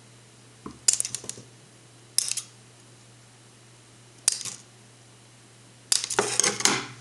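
Small tools and wires being handled: a few separate sharp clicks and light clatters, with a longer run of clatter near the end, over a steady low hum.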